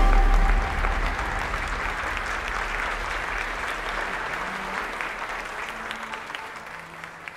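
Audience applauding: dense, many-handed clapping that fades slowly away toward the end.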